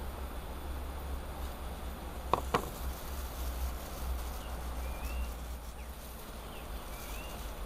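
Outdoor rural ambience over a steady low rumble, with a few short rising bird chirps and two sharp knocks close together a little over two seconds in.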